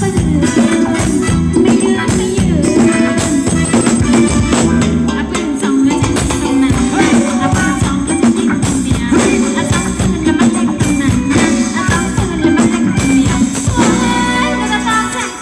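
Live Thai ramwong dance band music with a steady beat, shaken percussion and a singer.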